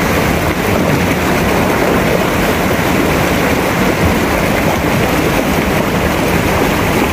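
Shallow river water rushing over rocks in small rapids: a steady, loud, unbroken noise.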